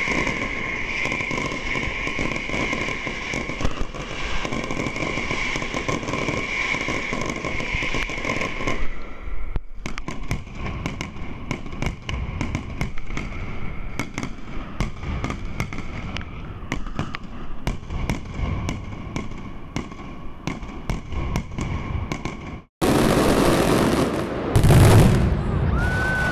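Daytime aerial firecrackers of a Fallas mascletà-style display banging and crackling overhead in quick, irregular strings, with crowd voices underneath. A steady high whistling tone runs through the first several seconds. After a sudden cut near the end comes a louder stretch with one heavy boom.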